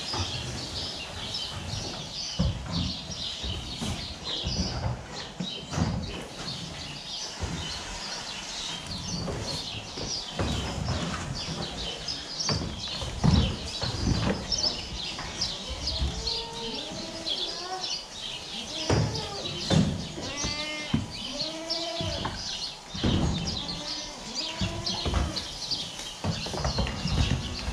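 A pen of goats bleating, with many short calls coming more often through the second half. Under them are knocks and rustling throughout.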